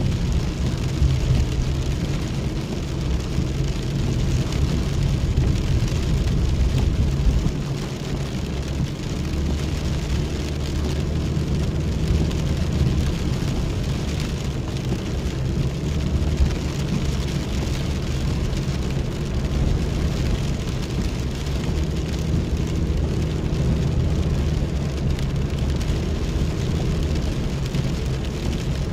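Steady low rumble of a vehicle driving in heavy rain, heard from inside the cabin, with rain on the roof and windows.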